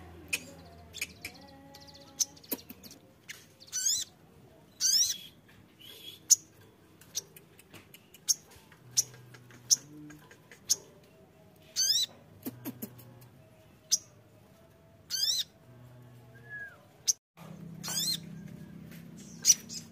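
Sunbird (sogon) calling: sharp, high single chirps repeated every second or so, with a few quick twittering trills mixed in.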